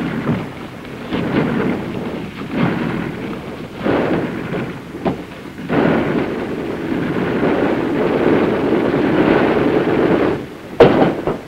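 Rumbling battle noise of small-arms fire, swelling and fading, with a sharp bang near the end.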